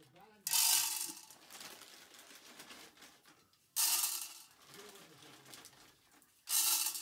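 Dried popcorn kernels dropped into a metal cooking pot three times, rattling and clinking against the metal. Each handful comes in suddenly and dies away within about a second.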